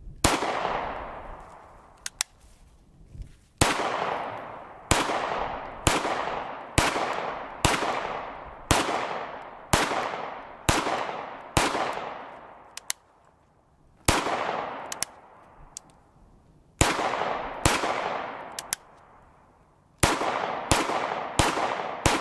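Sphinx SDP 9mm pistol fired in a steady string of single shots, mostly about a second apart, with two longer pauses; about twenty shots in all. Each report echoes and fades over about a second.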